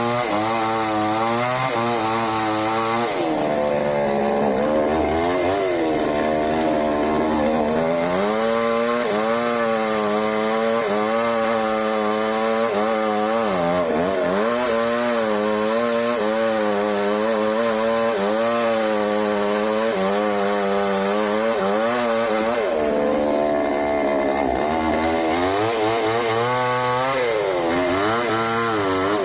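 A two-stroke chainsaw engine revving, its pitch rising and falling every second or two without a break.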